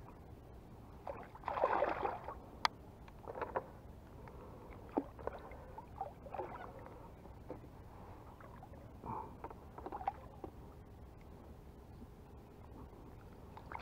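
A hooked peacock bass splashing and thrashing at the water's surface beside a kayak, in a series of irregular splashes with the biggest about two seconds in. A single sharp click comes just after it.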